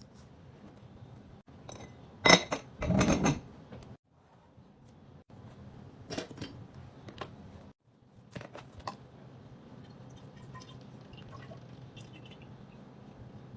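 Kitchenware being handled and set down: a sharp clack about two seconds in, a burst of clattering just after, then scattered lighter knocks and clinks.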